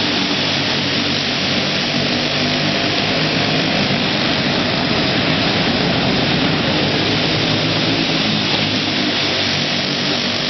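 Several racing go-karts' small flathead engines running hard around a tight dirt oval, a steady loud engine drone that wavers as the karts lift off and get back on the throttle, heard inside a large indoor hall.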